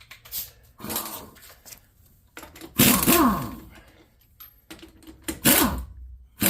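A man's short, breathy vocal outbursts: a faint one about a second in, then two loud ones about three and five and a half seconds in, each falling in pitch.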